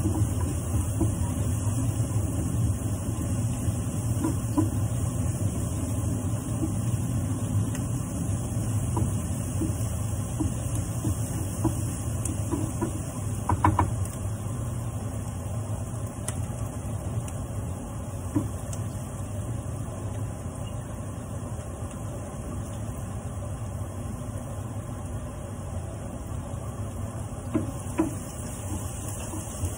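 Onions and vegetables sizzling in a frying pan as a wooden spatula stirs them, with a few short knocks of the spatula against the pan, over a steady low hum.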